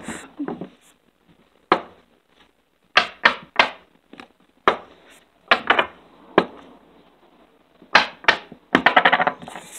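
A plastic fidget stick knocking and clacking in the hands as it is flipped and caught during failed trick attempts: about ten separate sharp knocks, with a quick run of clicks near the end.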